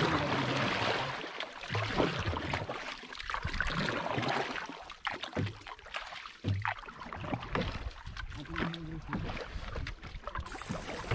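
Wooden paddle stroking through the water beside a small wooden outrigger canoe, a swishing splash that swells and fades every second or two with each pull.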